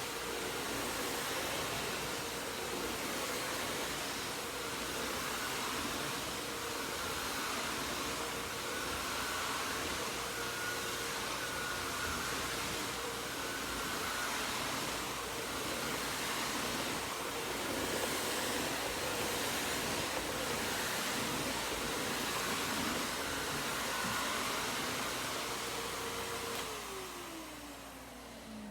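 Miele S 168 vacuum cleaner's motor running steadily with a rushing airflow noise, then switched off near the end, its whine falling in pitch as the motor spins down.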